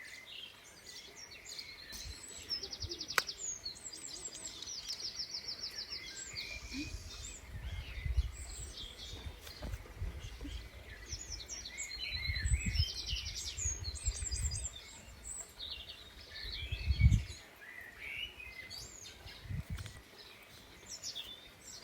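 Small birds chirping and singing, with quick repeated trilling notes among the calls. Several low rumbles on the microphone, the loudest about seventeen seconds in.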